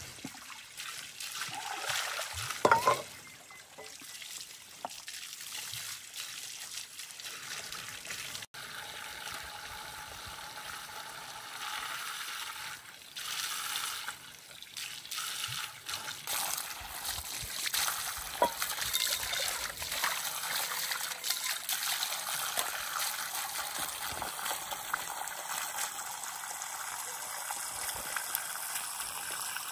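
Water from a garden hose pouring and splashing onto a pile of stones, a steady trickling rush. A brief loud sound stands out about three seconds in.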